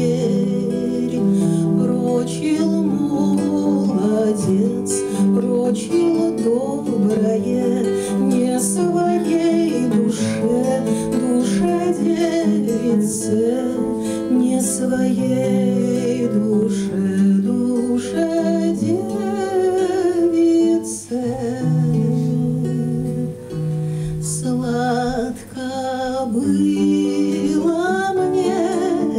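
A woman singing a Russian romance while accompanying herself on a classical guitar.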